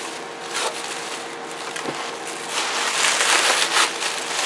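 Plastic bubble wrap crinkling and rustling as it is pulled and handled, louder in the second half.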